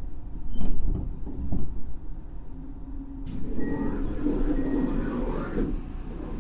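Interior sound of a JR Hokkaido 733 series electric train: a low rumble with two knocks in the first couple of seconds, then about three seconds in a sudden loud hiss starts and runs for about two and a half seconds before dying away.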